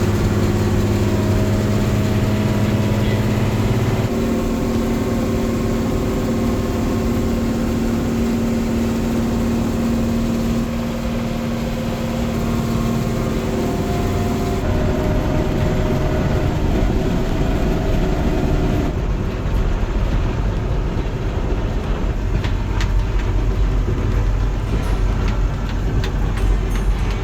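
Heavy machine's engine running hard under load, with steady pitched lines that shift several times as the engine speed changes; the machine is struggling.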